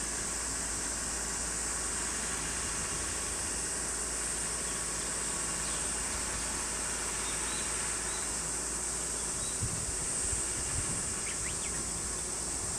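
Steady high-pitched drone of cicadas.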